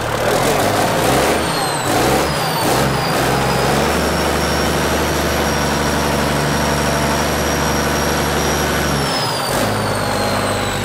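Excavator's diesel engine, running again after sitting for years, revs unevenly for the first few seconds, then holds at higher speed with a high whine. It drops back to idle about nine seconds in.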